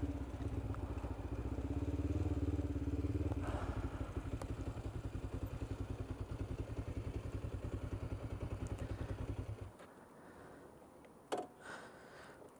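Kawasaki GPZ 500 S parallel-twin engine running as the bike rolls to a stop, then idling with an even pulsing beat. The engine cuts off suddenly about ten seconds in, followed by a couple of short knocks.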